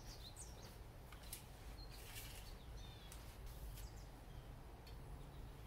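Faint handling sounds of an engine oil dipstick being pulled from its tube and wiped with a shop towel, with a few short high squeaks and light clicks over a low steady hum.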